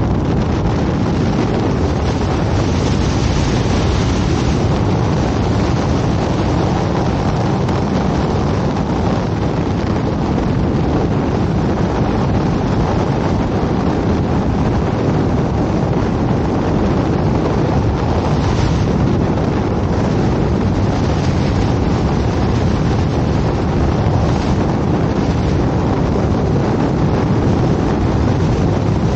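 Freefall airflow rushing over a helmet-mounted camera's microphone: steady, loud wind noise with no break.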